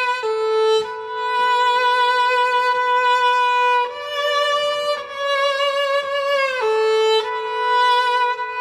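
Solo viola bowed in a slow melody of long held notes, each lasting a second or two, sung out with vibrato.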